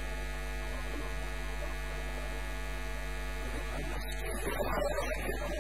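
Steady electrical mains hum: a low, constant buzz with a stack of overtones, the kind of hum an amplified stage sound system picks up. A brief, slightly louder patch of irregular noise comes about four to five seconds in.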